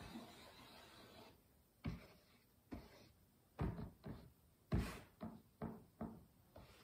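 A series of light wooden knocks and taps, about nine of them at irregular intervals over roughly four seconds, starting about two seconds in: a glue bottle and thin wooden furring strips knocking against each other on a table as yellow glue is laid along the strips.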